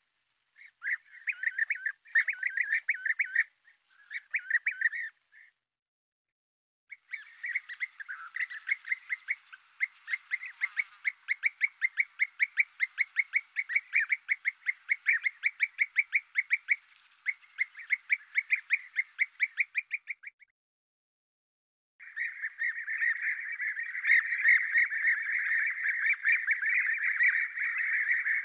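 European bee-eaters calling: short, repeated calls, at first in scattered bursts, then a fast run of about four calls a second, and near the end a dense overlapping chorus of many birds. The sound cuts out completely twice, where separate recordings are joined.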